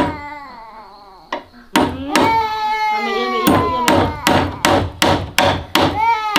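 A hammer driving a nail into a wooden floorboard: a few scattered blows, then steady strikes about three a second from about halfway in. A baby cries alongside, loudest at the start.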